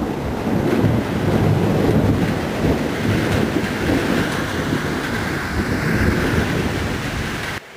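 Thunder rumbling continuously over steady rain, cutting off abruptly near the end.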